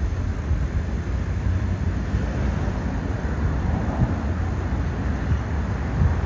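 Steady low outdoor rumble, with a few brief low bumps and no distinct events.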